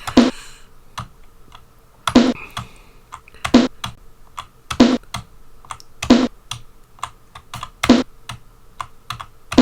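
Computer keyboard typing, with many light key clicks and about six louder sharp hits spaced one to two seconds apart, over a faint steady hum.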